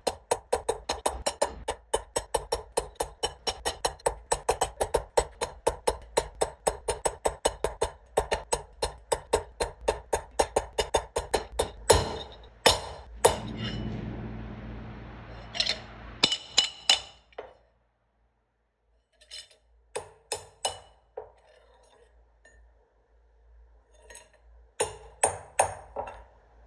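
Hammer driving a steel punch into a stainless steel cleaver blank on a steel anvil block to dimple its surface: a quick, even run of ringing metal strikes, about four or five a second, for some twelve seconds. After that come a few single strikes and the clink of the steel blank being handled on the block.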